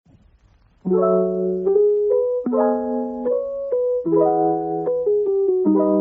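Background music: a piano-like instrument playing slow chords, a new chord struck about every second and a half, starting about a second in.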